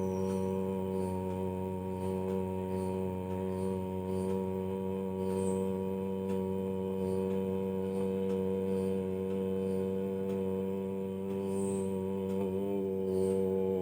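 Sustained chanting of the syllable 'Om': one steady, low droning tone held without a break, wavering briefly near the end.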